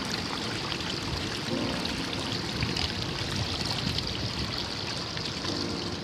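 Waterfall water rushing and churning into foam over rocks, a steady rush.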